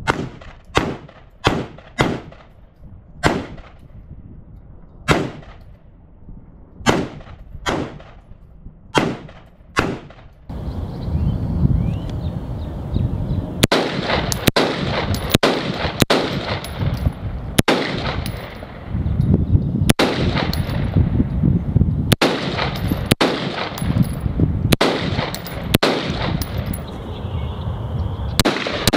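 Colt LE6940 AR-15-type rifle in 5.56 NATO firing single semi-automatic shots, about a dozen irregularly spaced in the first ten seconds. From about 13.5 s a steadier string follows at roughly one shot a second over a steady low rumble.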